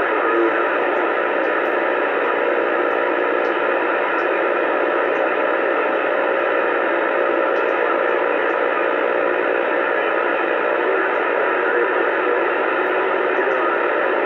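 Steady static hiss from a Uniden Bearcat CB radio's speaker, receiving band noise on channel 28 AM (27.285 MHz) with no one transmitting. A faint steady tone under the hiss fades out about eleven seconds in.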